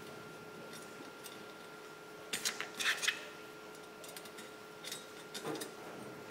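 Faint metallic clinks and rattles of perforated aluminium channel pieces and small screws being handled, with a cluster of clinks in the middle and a few more near the end.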